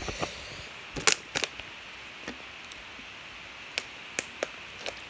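Sparse sharp clicks and light crackles of a plastic water bottle being handled close to the microphone, the loudest about a second in, over a faint steady hiss.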